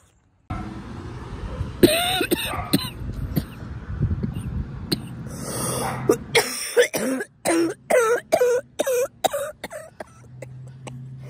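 A person coughing in short repeated bursts: a few about two seconds in, then a quick run of them near the end.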